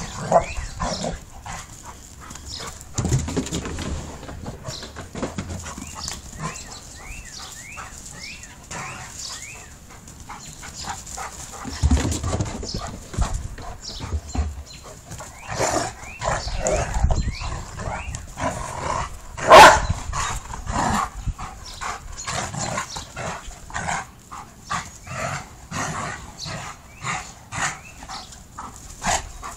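Two dogs, a Doberman and a white shepherd, play-fighting, with short barks and dog noises coming in quick bursts, busier in the second half, and one loud bark about twenty seconds in.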